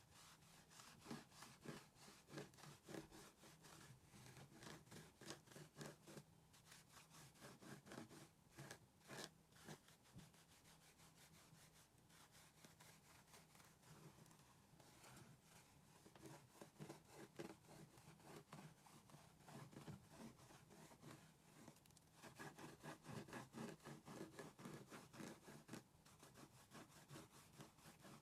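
Puzzle glue being spread over the face of an assembled jigsaw puzzle: quiet, repeated rubbing strokes of an applicator on the cardboard pieces, in faster, louder runs near the start and again a little before the end.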